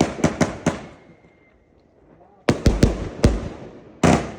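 A 51-shot, 30 mm consumer firework cake firing its shots in quick volleys of sharp bangs, each trailing off in a fading hiss. Several bangs come in the first second, then a short lull, another volley about two and a half seconds in, and one more loud bang near the end.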